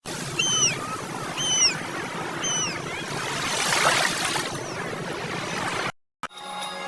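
A bird calls three times, about a second apart, each a short call that rises and falls in pitch, over a steady hiss.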